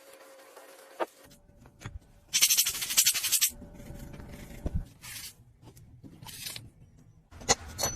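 Small tools working on a watch: scattered clicks and scraping, the loudest a harsh scrape lasting about a second, some two and a half seconds in.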